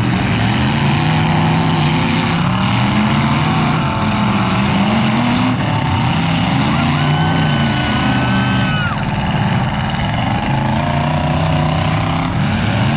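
Demolition derby cars' engines running and revving up and down in the arena. About seven seconds in, a steady high-pitched squeal holds for about two seconds.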